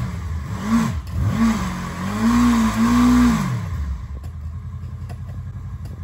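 Sport motorcycle engine revved several times, each rev rising and falling in pitch, the last one held a little longer, then dropping back to a steady idle about four seconds in.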